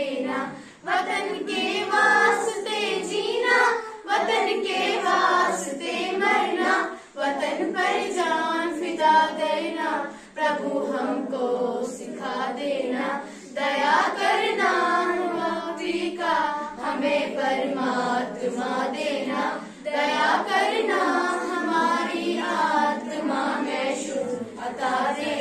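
A group of girls singing together in unison, line by line, with short breaths between phrases.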